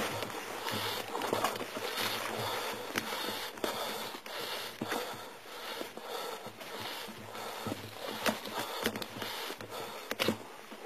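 Continuous rustling and brushing noise with scattered sharp clicks and knocks at irregular intervals.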